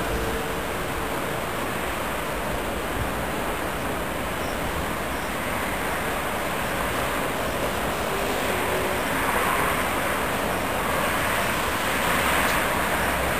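Italian electric locomotive approaching on the curve, its steady rumble of wheels and traction equipment growing a little louder toward the end.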